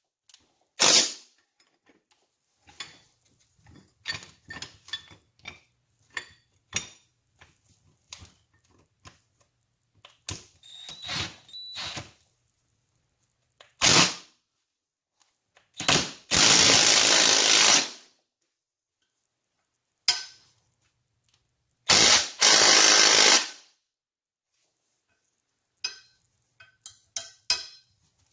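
Handheld power tool running in short loud blips, and twice for about two seconds, about halfway through and again a little later. Small metallic clicks and taps of hand work on the engine fall between the runs.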